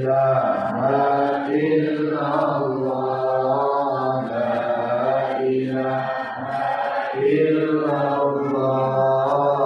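A voice chanting dhikr, a short Islamic remembrance phrase repeated in long held phrases with brief breaks between them.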